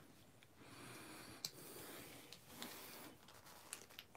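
Faint clicks and crinkles of a thin clear plastic packaging tray being flexed and picked at by hand to free a small accessory, with a few sharp ticks scattered through.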